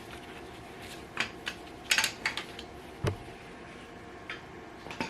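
Scattered sharp metallic clinks and knocks of hand tools working the intake manifold loose on a Dodge 5.2 Magnum V8, over a faint steady hum.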